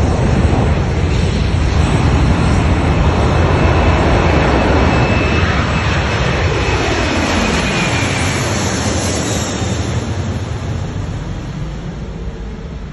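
Twin-engine widebody jet airliner passing low overhead: a loud jet roar with a falling whine as it goes by about seven seconds in, then fading as it moves away.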